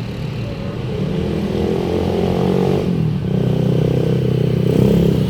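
Tour bus engine accelerating past: its pitch climbs, dips about three seconds in, then climbs again.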